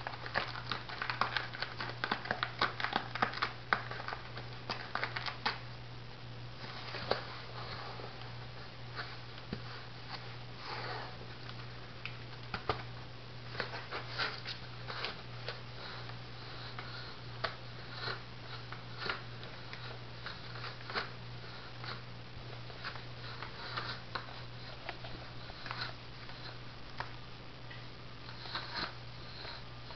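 Cat clawing and rubbing on a corrugated cardboard scratcher doused with catnip: irregular scratchy rasps and rustles, thickest in the first five seconds or so and sparser after. A steady low hum lies under them.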